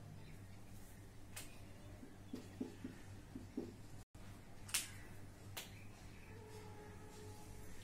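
Marker on a whiteboard: a few short scratchy strokes in quick succession, sharp taps of the tip against the board, and a faint squeak near the end as a line is drawn, over a steady low electrical hum.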